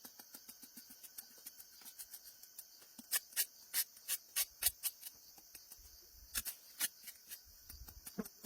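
Irregular sharp clicks and taps, loudest in a run a few seconds in and again near the end, over a steady high hiss.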